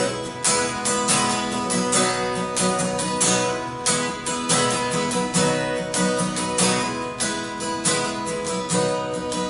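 Acoustic guitar strummed in a steady rhythm, chords ringing between the strokes, with no singing.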